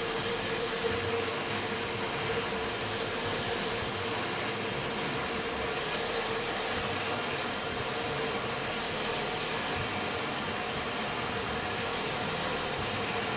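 CNC milling machine drilling with a 1/4-inch drill bit under coolant from a coolant ring. It makes a steady hum and hiss, with a short high whine that repeats about every three seconds.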